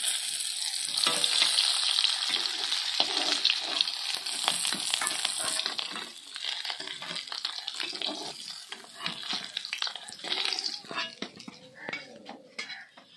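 Rohu fish steaks sizzling in hot mustard oil in a kadhai, with a metal spatula scraping and clicking as the pieces are turned and lifted out. The sizzling is loudest at first and dies down after about six seconds as the fish comes out of the oil.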